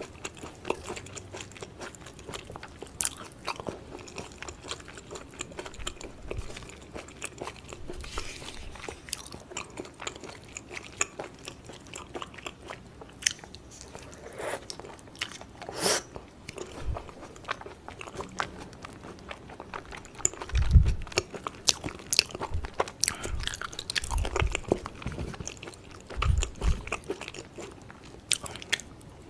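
Close-miked chewing and biting of yukhoe (raw beef tartare) with crisp Korean pear strips: wet, sticky chewing mixed with irregular crunches and small clicks. A few low thumps stand out, the loudest about 21 seconds in.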